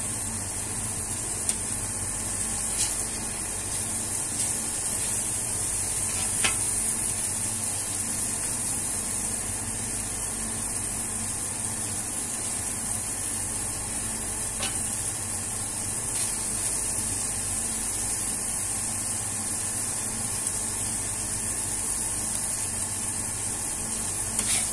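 Beef smash burger patties and burger buns sizzling on a flat-top griddle, a steady frying hiss, with a few short scrapes and clicks of a metal spatula on the plate, one near the end as a bun is lifted.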